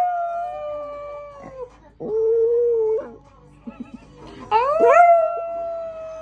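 Small dog howling in long drawn-out notes. A howl tails off and falls in the first second and a half, a shorter, lower held note comes about two seconds in, and a new howl rises at about four and a half seconds and is held to near the end.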